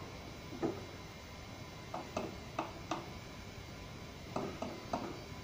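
Light knocks of kitchen utensils against metal cookware: one just under a second in, then a quick run of four, then three more near the end.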